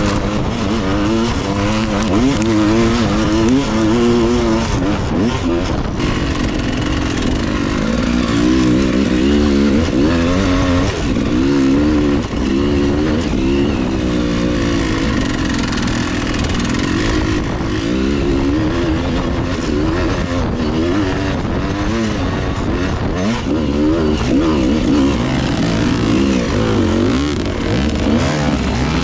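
Dirt bike engine heard up close from the bike itself while riding a rough forest trail, its note rising and falling constantly as the throttle is opened and closed.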